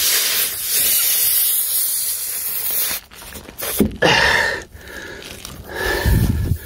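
Air hissing out of a punctured tyre through the hole that goes right through it, cutting off suddenly about three seconds in. Two shorter handling noises follow.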